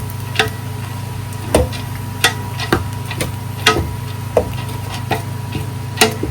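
A cooking spoon or spatula knocking and scraping against a pan while stirring fried rice with raw carrots, about nine irregular taps. A steady low hum runs underneath.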